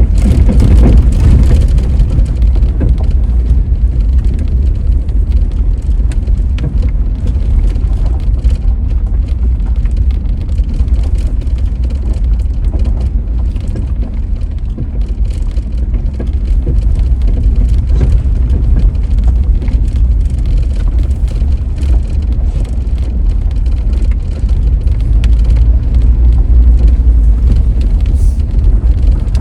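Steady, loud, low rumble of a car driving, with a haze of road noise as heard inside the cabin.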